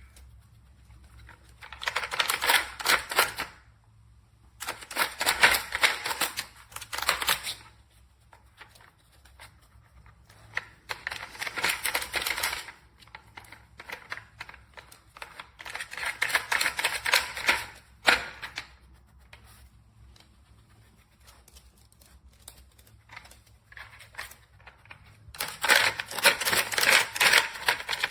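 A dog working a plastic treat-puzzle toy, making bursts of rapid plastic clicking and rattling. There are five bursts of two to three seconds each, with quieter pauses in between.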